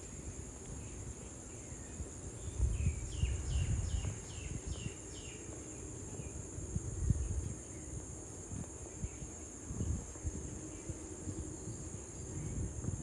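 Steady high-pitched drone of an insect chorus, with a bird giving a quick run of about six short descending notes about three seconds in. Low, uneven rumble on the microphone underneath.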